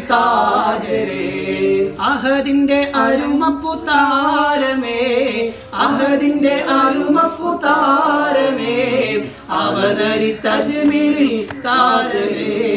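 Several men singing a devotional song together in long held, melodic lines, with a harmonium playing along underneath.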